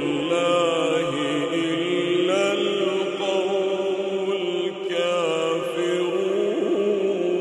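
A man reciting the Quran in melodic tajweed chant, drawing out long held notes with ornamented turns in pitch, without a pause.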